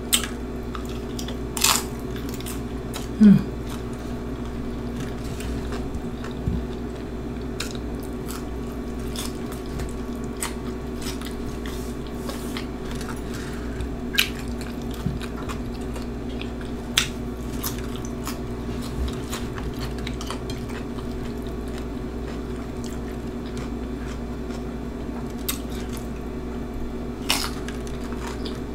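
Scattered crisp crunches and clicks every few seconds as tortilla chip scoops topped with Flamin' Hot Cheetos nachos are picked up by hand, bitten and chewed, over a steady low background hum.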